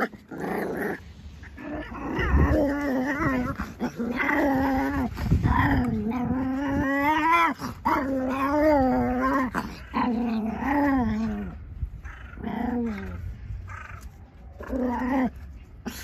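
A dog growling in long, wavering growls that last several seconds each, with two shorter growls near the end.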